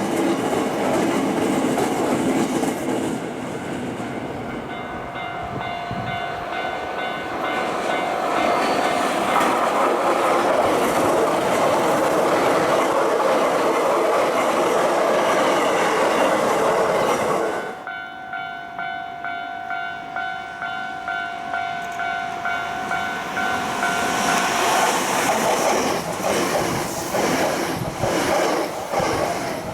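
Electric trains passing over a Japanese railway level crossing, their running noise and wheel clatter mixed with the crossing's electronic warning bell dinging steadily. The sound changes abruptly a little past halfway. Near the end a train clatters by over the rail joints.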